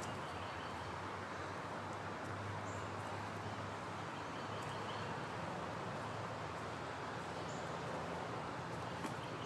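Outdoor nature ambience: a steady background rush with a low hum under it and a few faint, scattered bird chirps.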